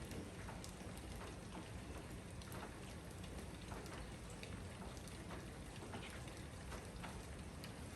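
Steady rain shower with scattered individual drops ticking on nearby surfaces.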